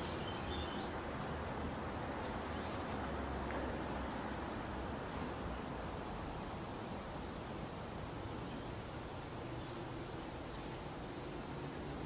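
Steady outdoor background noise with faint, short, high-pitched bird chirps a few times.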